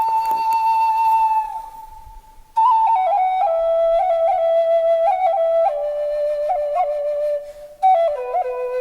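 Solo flute music: a slow melody of long held notes decorated with quick ornamental flicks, breaking off for about a second partway through before a new, lower phrase begins.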